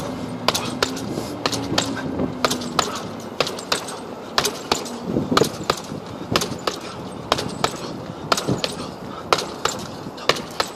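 Boxing gloves hitting a hanging heavy punching bag in quick, uneven flurries of sharp slaps, about three a second.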